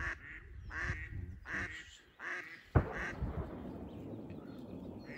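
A live decoy duck quacking in a series of about five calls, roughly two-thirds of a second apart. About halfway through, a single sharp shotgun shot is the loudest sound, and its echo fades slowly afterwards.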